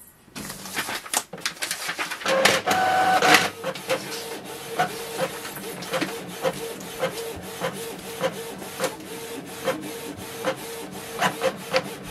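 Canon PIXMA MG2540S inkjet printer printing a test page. Its feed mechanism starts up and pulls in a sheet, loudest with a brief whine about two seconds in. Then the print head shuttles back and forth with a steady hum and a regular click about twice a second.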